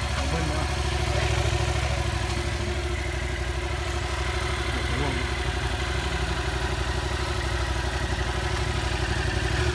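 Yamaha MT-07's 689 cc parallel-twin engine idling steadily through its exhaust, with an even, low pulsing note.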